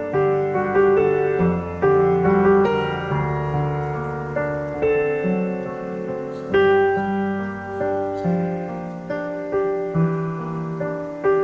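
Piano playing a slow introduction of struck chords and melody notes, each ringing on and fading before the next.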